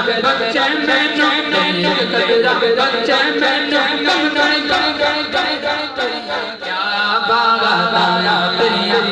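A man singing a Punjabi naat unaccompanied into a microphone through a sound system, holding long, ornamented notes. About two-thirds of the way through, a line falls away and the voice drops briefly before the next line begins.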